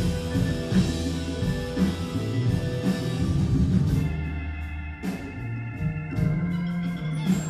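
Live rock band playing with an organ to the fore. For about the first four seconds bass and drums drive a steady beat. Then the band thins out to a long held organ chord, broken by a few single drum and cymbal hits.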